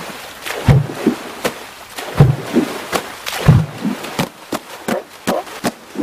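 Vanuatu water drumming: hands slapping and scooping the sea surface, giving deep, hollow plunks mixed with sharper splashing slaps in an uneven rhythm that quickens toward the end. The pattern imitates dolphins surfacing to breathe and play.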